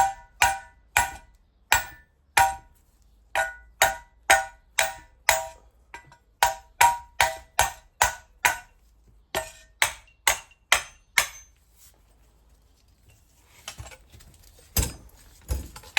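Hammer tapping a turbocharger's exhaust housing to free it from the core: a long run of sharp metallic strikes, about two a second in uneven bursts, each ringing briefly, stopping about eleven seconds in. One dull knock near the end.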